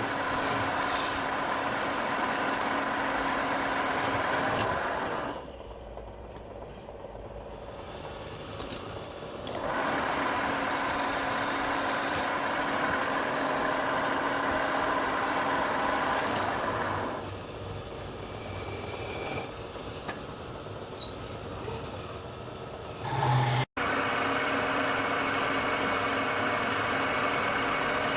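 Woodturning lathe running, with a hand-held turning tool cutting a long spinning piece of wood in three long passes. Between the passes the sound drops back to the lathe's steady motor and drive.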